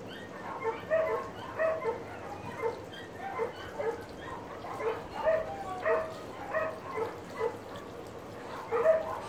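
French bulldog giving a string of short, high yips and whines, roughly two a second at an uneven pace, loudest near the end.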